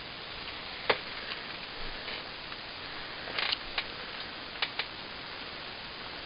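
A few short, sharp clicks and ticks over a steady background hiss: the loudest about a second in, then a small cluster a little after the middle and two more soon after.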